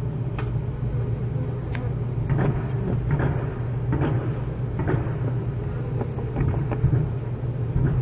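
Honeybee colony humming steadily inside the hive, a low, even drone of many bees, with scattered light ticks as bees bump and crawl on the camera.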